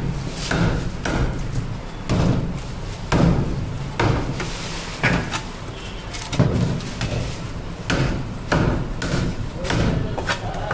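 Heavy cleaver chopping through fish and striking a thick wooden chopping block, a series of irregular sharp knocks roughly once or twice a second.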